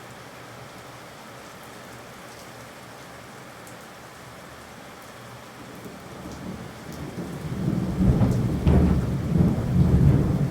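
Steady rain falling, with scattered drops ticking. About six seconds in, a low roll of thunder builds up and rumbles loudest near the end.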